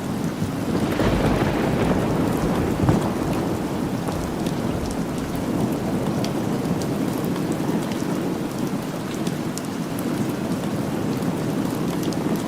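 Steady rain, with a low roll of thunder building about a second in and peaking in a sharp crack about three seconds in.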